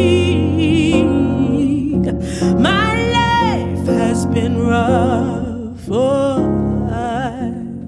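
A woman singing long, wordless held notes with wavering vibrato over a soft piano accompaniment.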